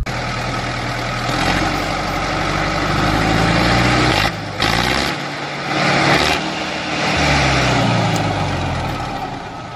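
Tractor-type engine running steadily with a low rumble. It drops out briefly about four seconds in and fades near the end.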